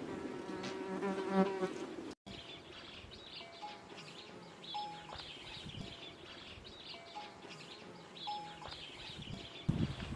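An insect buzzing close by for the first couple of seconds, then outdoor ambience of insects chirping in the heat with short, repeated bird notes. A few low thumps come near the end.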